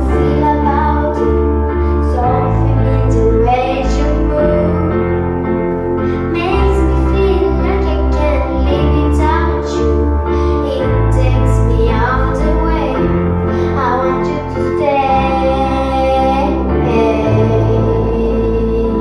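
A young girl singing a slow, tender song over instrumental accompaniment, with one long held note about two-thirds of the way through.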